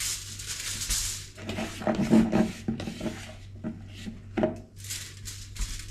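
Aluminium foil crinkling and rustling as a ball of dough is pressed down on it, with a few light knocks from a plastic mixing bowl being handled.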